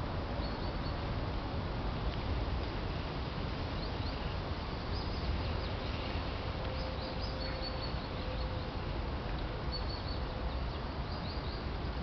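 Shallow stream flowing, a steady rush of water, with small birds chirping faintly now and then.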